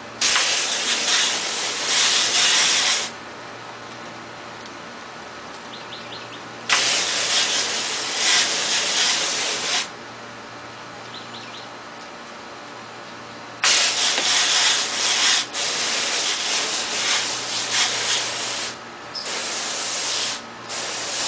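Garden hose spray nozzle jetting water onto a muddy RC crawler's chassis and tyres and the concrete beneath. The water comes in four hissing bursts of a few seconds each, with quieter pauses between them as the spray is stopped and restarted.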